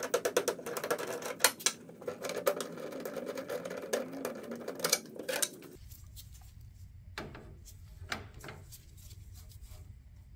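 Rapid metallic clicking and rattling over a faint wavering whir, as screws are worked out of the APU's diamond-plate sheet-metal cover panel. About six seconds in it stops abruptly, leaving a low hum and a few light clicks from a tool and parts being handled on the engine.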